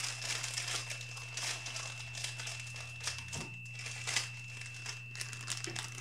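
Clear plastic bag crinkling and rustling in irregular bursts as a bagged plastic model-kit part is handled and pulled out of its box.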